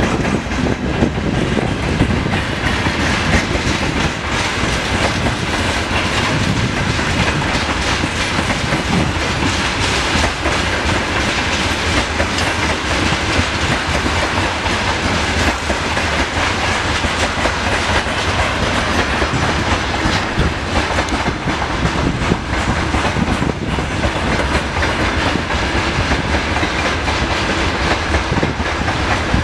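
Freight train of covered grain hopper wagons rolling past at speed: a steady heavy rumble of wheels on rail, with a constant rhythmic clickety-clack of wheels over rail joints.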